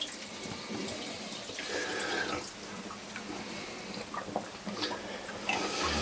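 Water in an ice-fishing spearing hole sloshing and trickling, with scattered light drips and small knocks.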